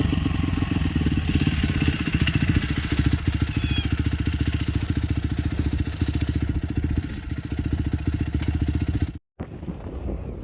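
Off-road vehicle engine running steadily close by, with a rapid, even firing pulse; it cuts off abruptly near the end, leaving a lighter rush of wind on the microphone.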